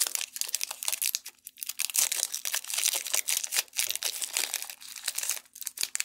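Foil wrapper of a Pokémon XY Evolutions booster pack crinkling and tearing as it is ripped open by hand: a dense run of sharp crackles, with a brief lull about a second and a half in.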